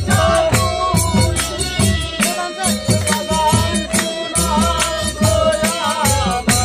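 Live Bengali bicched (baul-style folk) music: a singer's wavering voice over a steady held note, with regular low drum strokes and bright jingling percussion keeping a quick rhythm.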